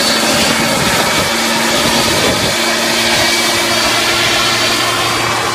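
Backpack leaf blower running steadily: a loud rush of blown air over a low, even motor hum.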